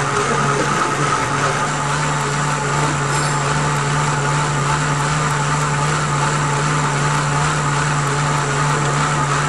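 Indoor bike trainer whirring steadily as the rider pedals, with a constant low hum and a higher whine.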